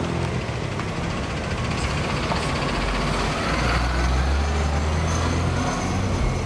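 Street traffic at a city crossing: vehicle engines idling and pulling away, with a steady low engine rumble under road noise that grows heavier about halfway through.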